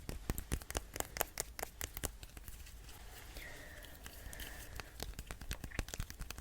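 Close-miked ASMR handling of art tools: rapid, irregular tapping and scratching clicks. They are dense at first, thin out in the middle and pick up again near the end.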